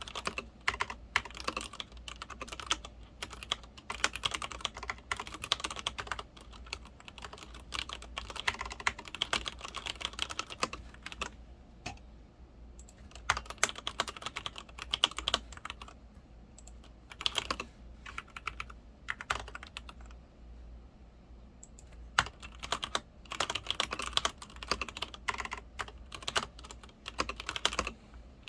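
Typing on a Leopold FC900R PD mechanical keyboard with Cherry MX Red linear switches: quick runs of key clacks in bursts, pausing briefly about twelve seconds in and again around twenty seconds in.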